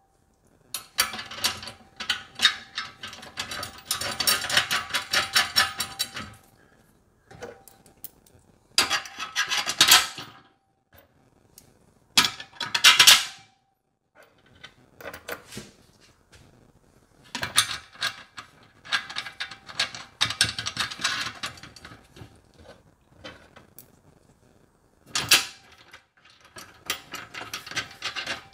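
Rapid metallic clicking and rattling in bursts of one to several seconds with short pauses between: bolts, washers and nylon-insert nuts being handled and hand-tightened on the aluminum and steel brackets of a folding loading ramp.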